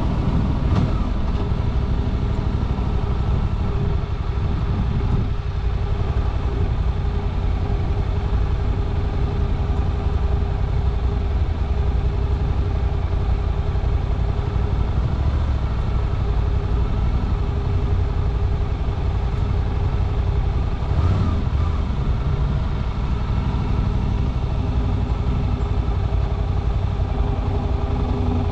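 Suzuki V-Strom 800RE's 776 cc parallel-twin engine running steadily while the bike is ridden, heard from the cockpit. The engine note briefly rises and falls about three-quarters of the way through.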